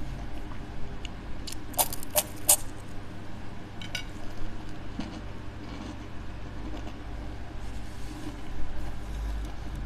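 Close-miked chewing of a mouthful of cured-ham and chicken rolls, with wet mouth sounds. A few sharp clicks come about two seconds in and another near four seconds, over a low steady hum.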